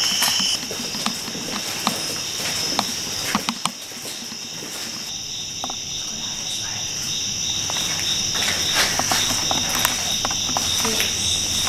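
Crickets chirping steadily in a high, even drone. The chirping drops out about half a second in and comes back around five seconds in. Scattered footsteps and small knocks sound over it.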